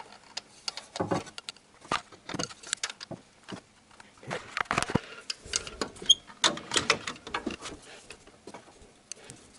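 Socket wrench with a 14 mm socket tightening the timing-belt tensioner pulley bolt: irregular metallic clicks and taps of the tool, some in quick clusters.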